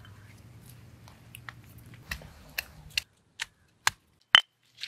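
Stone pestle pounding ginger and garlic in a stone mortar: a run of sharp knocks, about two a second, growing louder toward the end, the last one with a brief ring.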